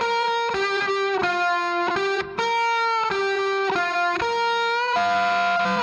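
Background music: a melody of single held notes, changing pitch about every half second.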